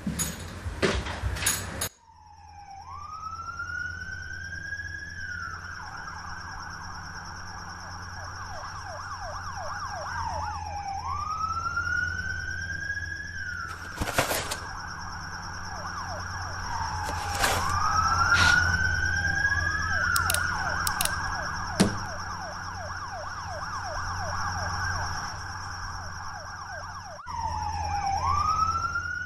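Emergency-vehicle sirens, starting abruptly about two seconds in after a few sharp knocks. Each cycle rises in a sweep and then breaks into a fast warble, repeating every several seconds, with two sirens overlapping at times. A steady high whine runs underneath, and a few sharp knocks sound through.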